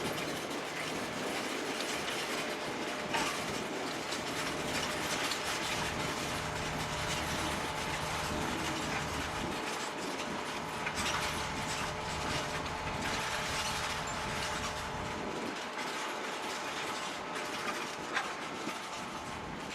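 John Deere 7280R tractor pulling an eight-furrow Kverneland plough: steady engine hum with a continuous mechanical rattle and a few sharp clanks. The deep engine tone drops away about fifteen seconds in.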